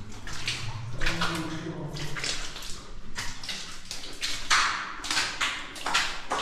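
Water sloshing and splashing in a flooded mine passage as someone wades through it, a splash with each step roughly once a second.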